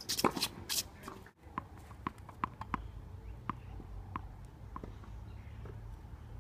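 Tennis ball bounced repeatedly on a hard court in preparation for a serve: a string of light, sharp pops about half a second apart, after a few quick clicks in the first second.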